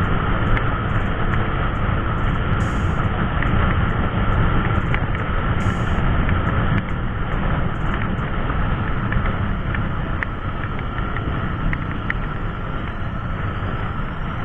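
Yamaha NMAX 155 scooter ridden at around 70–80 km/h: steady wind rush on the microphone mixed with engine and road noise. It drops slightly in level about halfway through as the scooter slows.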